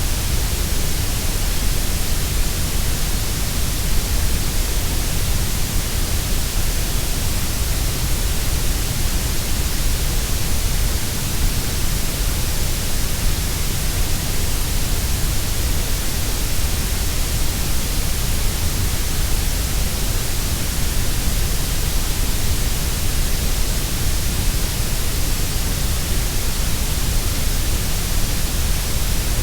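Continuous grey noise: a steady, unbroken hiss, fuller in the deep bass and the high treble and thinner through the middle.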